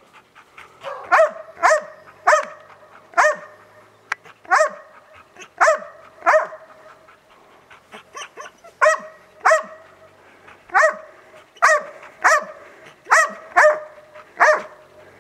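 East Siberian Laika barking in a steady series, about fifteen barks roughly a second apart with two short pauses: the bay of a hunting laika holding game for the hunter.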